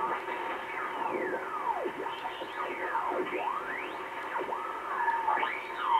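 Grundig Satellit 3400 short-wave receiver tuned across the 40-metre band with its BFO on. Heterodyne whistles glide down in pitch and back up several times as signals are tuned through, over steady band hiss.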